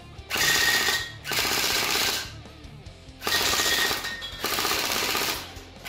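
Jinming J12 AK-74U gel blaster firing full-auto on an 11.1 V battery: four bursts of about a second each, the electric gearbox cycling in a fast rattle.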